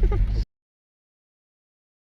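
Steady low car-cabin rumble that cuts off abruptly about half a second in, followed by dead digital silence: the audio track is muted.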